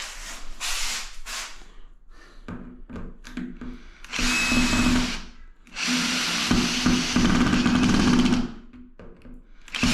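Power drill running in two bursts, a short one of about a second and then a longer one of nearly three seconds, with scattered knocks and handling sounds before them.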